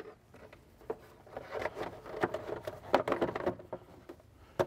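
Hard plastic air-intake duct being worked into place in a car's engine bay: scraping and rubbing of plastic with a quick run of small clicks and knocks, busiest in the middle, and one sharp click near the end.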